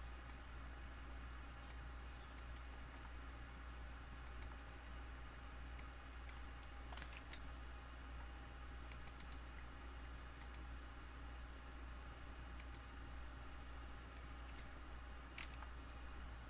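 Scattered sharp clicks of a computer keyboard and mouse, some coming in quick pairs or threes, over a faint low steady hum.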